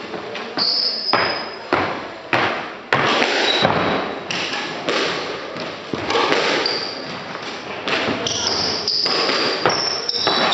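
Court shoes thudding and squeaking on a hardwood squash court floor during quick footwork steps and lunges: a heavy footfall about every half second, with short high squeaks from the soles.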